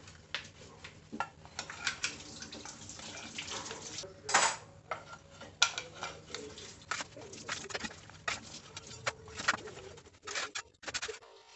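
Metal spatula scraping and clicking against a metal baking sheet as baked empanadas are slid off it, with one longer, louder scrape about four seconds in.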